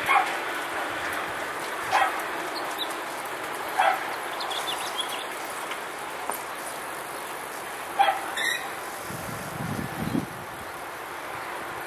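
A dog barking, single short barks about every two seconds, over steady background noise.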